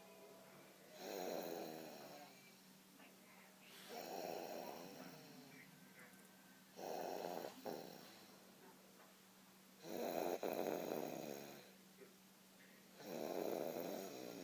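A baby snoring in sleep: five snores, about one every three seconds, each lasting about a second.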